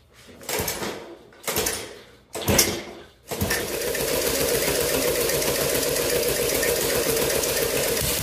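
Three quick pulls on the recoil starter of a Tecumseh-powered walk-behind mower, about a second apart, without it starting. Then a cordless drill spins the engine over steadily for about five seconds, cutting off near the end, and the engine still does not fire.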